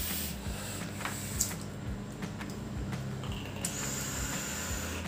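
Vaping on rebuildable dripping atomizers (RDAs): a soft hiss of air drawn through the atomizers and of vapor breathed out, with a few faint clicks.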